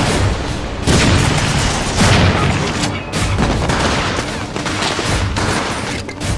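Heavy gunfire: many rifle and machine-gun shots in quick succession with heavy bangs, and bullets striking a brick wall.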